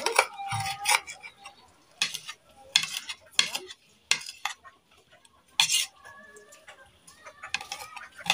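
Small kitchen knife slicing green chili peppers on a plate: the blade knocks and scrapes against the plate in irregular clicks, roughly one every half second to a second.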